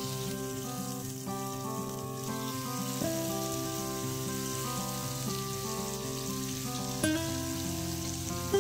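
Steak sizzling as it fries in a pan, under background music of slow held notes. A short click about seven seconds in.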